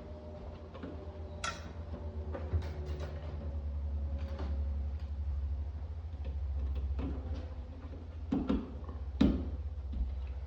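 Scattered light clicks and knocks of a wall sconce fixture and its wires being handled and hung by its ground wire, over a low steady rumble.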